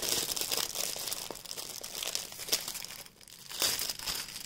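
Thin clear plastic packaging crinkling and rustling as it is handled and pulled off a rolled diamond painting kit, with a brief lull a little after three seconds in.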